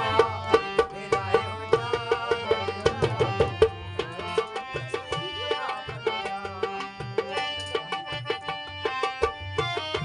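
Harmonium playing a melody over held reed notes, with a hand drum beating a quick, steady rhythm under it.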